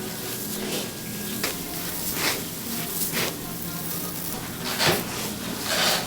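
Kitchen work noise while roll cakes are made: a steady background hum with a handful of short knocks and scrapes from utensils and equipment, the loudest two near the end.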